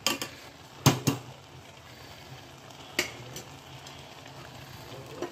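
A metal spoon clinking a few times against a stainless steel pot of grated carrots in milk, with a faint steady hiss from the pot underneath.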